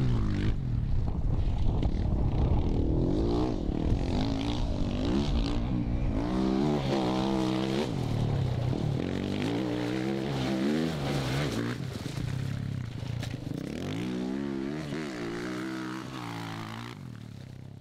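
Dirt bike engine revving up and dropping back again and again as the rider accelerates across gravel, the pitch climbing and falling with each rev. It fades near the end.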